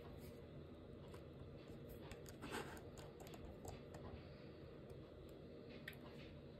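A few faint, scattered clicks over a low, steady background hum.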